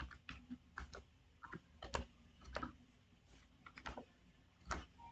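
Computer keyboard keys tapped slowly and unevenly, single faint keystrokes about once or twice a second, while code is typed into a text editor.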